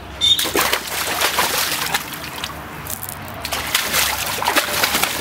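A dog wading in a water-filled kiddie pool, its legs splashing and sloshing the water in irregular bursts, with a short lull about halfway through.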